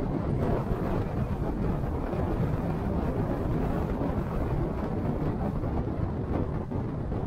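Steady low rumble of a car driving along the road: engine, tyre and road noise.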